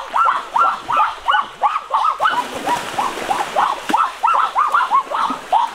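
Duck quacking in a rapid run of short calls, about three a second, with water splashing.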